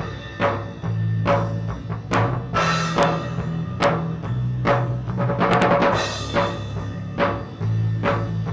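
A drum kit playing a steady beat at about two hits a second during a live band sound check, with cymbal crashes about two and a half seconds in and again around five and a half seconds, over held low notes.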